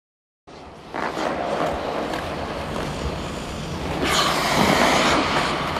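Ice skate blades gliding and scraping on ice as a steady hiss, swelling into a louder scrape about four seconds in, with a few sharp blade strikes.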